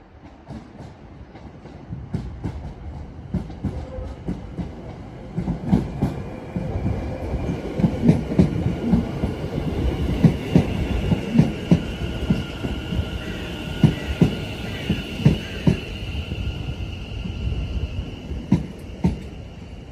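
West Midlands Railway Class 730 electric multiple unit arriving along the platform. Its wheels click over rail joints in an uneven run of thumps above a rolling rumble, with a steady high whine. The sound builds from about two seconds in, is loudest in the middle, and fades near the end.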